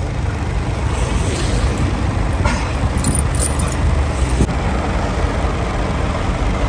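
Heavy truck's diesel engine idling in a steady low rumble, with a few short metallic clinks and rattles from snow chains being fitted to the drive-wheel tyre.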